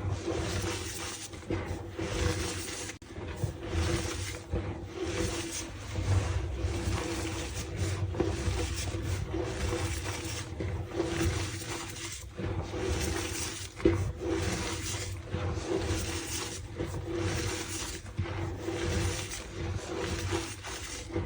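Reformed gym chalk being crushed and squeezed by hand: a run of irregular, crumbly crunches with a squeaky edge, coming every half second or so.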